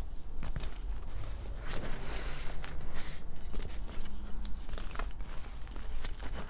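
Reformed gym chalk discs crumbled and squeezed in bare hands over a bowl of loose chalk powder: soft, irregular crunching and crackling with scattered sharper clicks, densest about two to three seconds in.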